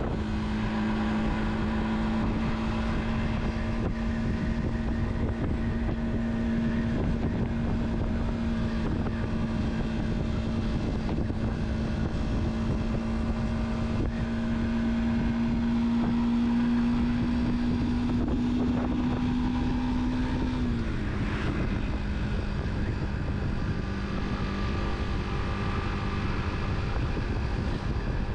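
Car driving at a steady speed: an even engine hum over low road and wind rumble. The engine note climbs slowly, then drops about twenty seconds in.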